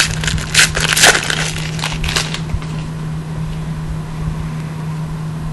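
The foil wrapper of a 2011 Panini Prestige football card pack being torn open and crinkled by hand, with sharp crackles for the first couple of seconds. A steady low hum runs underneath.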